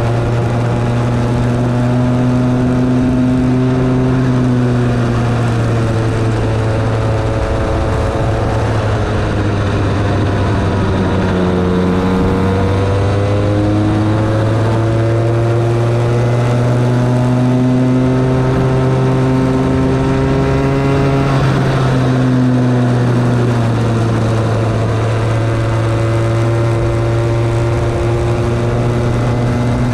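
Bambino go-kart's small 50cc two-stroke engine heard from on board at racing speed, its pitch climbing on the straights and dropping back for the corners, with clear drops about a third and about two thirds of the way through. Rushing wind and tyre noise run underneath.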